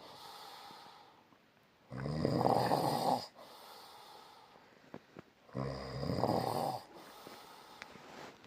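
Loud, rhythmic snoring: two long rattling snores about three and a half seconds apart, with quieter breathing between them.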